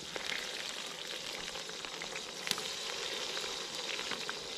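Oil and fat sizzling in a cast-iron cauldron over a wood fire: a steady frying hiss with scattered small crackles and one sharper click about halfway through.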